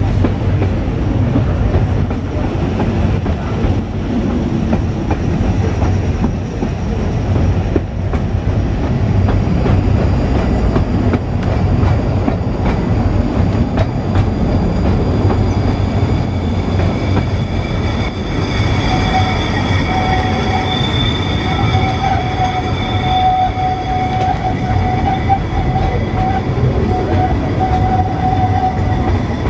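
Great Orme Tramway's cable-hauled tramcar running on its rails: a steady rumble and rattle of wheels on track. About two-thirds of the way through, a steady high squeal joins in and holds.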